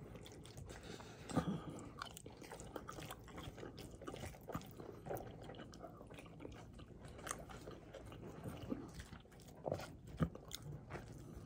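A person chewing a forkful of salad close to the microphone: soft wet chewing with scattered small crunches and clicks.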